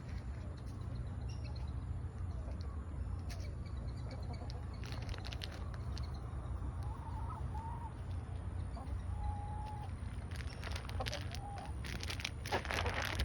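Backyard hens clucking, with a few short level calls. Scattered sharp clicks and rustling come at about five seconds and grow busier near the end.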